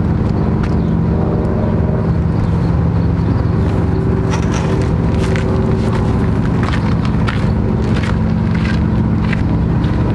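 A steady, loud motor drone with a low hum, from about four seconds in joined by footsteps crunching on gravel.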